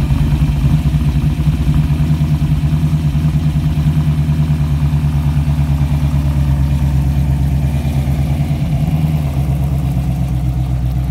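Ford GT40 replica's 427 Cobra V8 running at a low, pulsing idle as the car pulls slowly away, with no hard revving.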